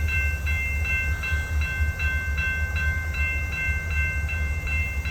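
Railroad crossing bell ringing steadily, about two and a half strikes a second, over the low rumble of diesel locomotives.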